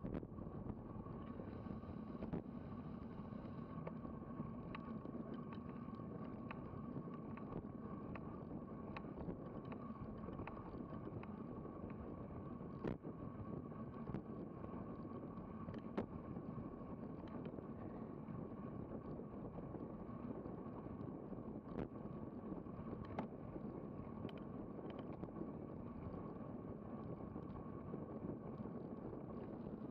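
Steady rush of wind and road noise on a bicycle-mounted action camera riding at about 25 mph, with scattered sharp clicks and knocks.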